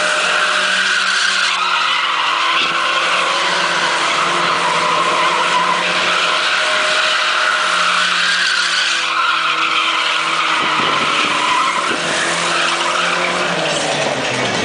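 Toyota Celica doing donuts: tyres squealing continuously as the car spins, with the engine held at fairly steady revs underneath.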